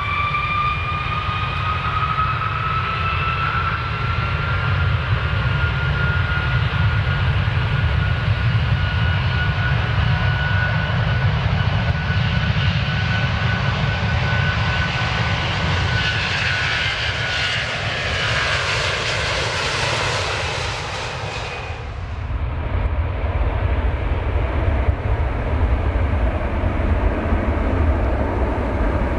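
Jet airliner taking off: the engines' whine rises in pitch over the first few seconds and then holds over a deep rumble. A broad rushing hiss builds and cuts off abruptly about 22 seconds in, leaving a lower, duller rumble.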